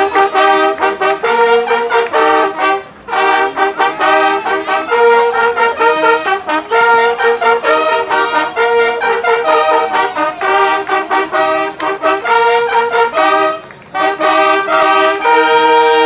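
A group of long straight fanfare trumpets playing a fanfare together, several notes sounding at once, in phrases broken by short pauses about three seconds in and about fourteen seconds in, ending on a long held chord.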